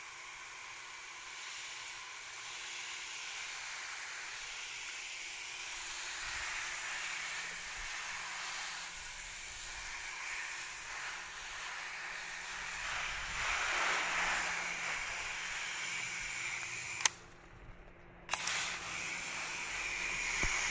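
Water spraying and hissing onto leafy garden plants while they are watered. About 17 seconds in the spray stops with a click and starts again a second later with another click.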